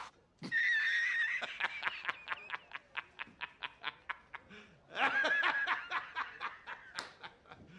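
A man laughing: a high opening, then a rapid run of short "ha"s that slowly dies away, and a second burst of laughter about five seconds in that tails off again.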